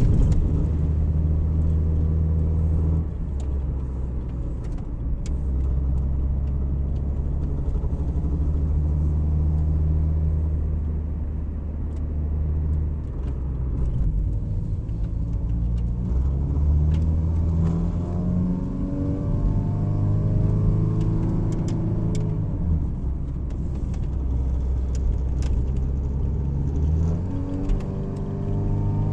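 Car engine and road noise heard from inside the cabin while driving. The engine's pitch climbs as the car accelerates and drops back several times.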